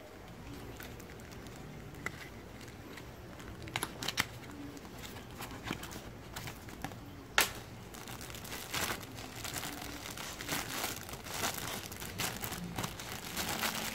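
Plastic packaging crinkling and rustling, with scattered small clicks, as a new shifter inner cable is unwrapped; the rustling gets busier in the second half.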